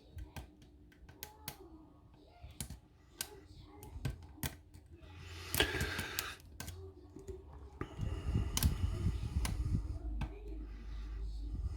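Small sharp metal clicks and ticks of lock picking: a pick and tension wrench working the pins inside a lock. It turns into a denser spell of clattering and scraping about eight seconds in.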